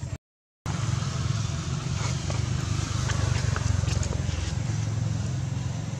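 A motor vehicle engine running steadily, a low pulsing rumble, cut by a half-second dropout to silence just after the start.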